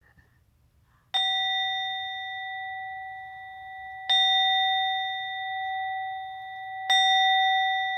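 A bell struck three times, about three seconds apart, each strike ringing on and slowly fading into the next.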